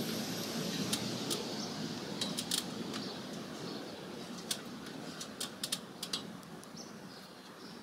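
Handling noise as a sheepskin is shifted on the stepladder it is tied to: light scattered clicks and rustles, most of them between about two and six seconds in, over a faint steady hiss.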